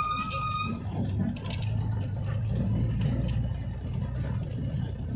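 A vehicle's engine running steadily while driving downhill, with one short horn honk right at the start.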